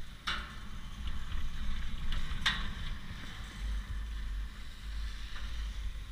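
Chairlift ride: a steady low rumble of wind on the microphone, broken by two short sharp noises about two seconds apart as the chair's grip runs over the sheave rollers of a lift tower.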